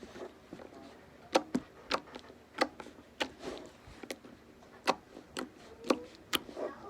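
Homemade slime being pressed and squeezed, giving a string of sharp clicking pops at irregular spacing, about one every half second.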